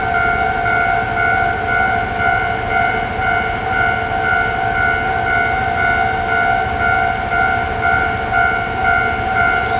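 A Japanese railway level crossing's electronic warning bell ringing without a break: a loud, rapidly repeating ding that signals a train is approaching. The uploader calls it noisy.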